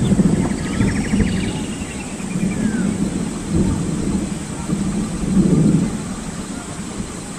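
Wind rumbling on the microphone in uneven gusts, with a short, quick high trill about a second in.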